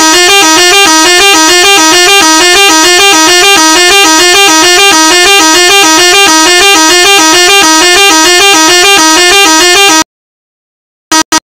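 Loud electronic siren tone from a siren-simulator app, a horn-like sound warbling rapidly up and down in pitch. It cuts off abruptly about ten seconds in.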